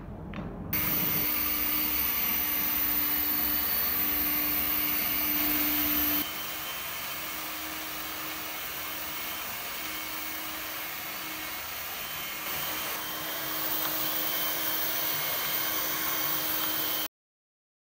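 Small cleaning robot's suction fan running steadily with a high whine, and a low motor hum that switches on and off in spells of a second or so. The noise drops in level about six seconds in, rises again later, and cuts off sharply near the end.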